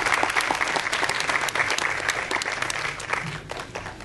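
Cinema audience applauding, a dense mass of clapping that thins and dies away near the end.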